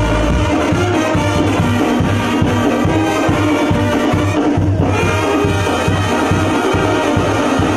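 Mexican banda playing dance music: brass melody over a steady, evenly pulsing beat.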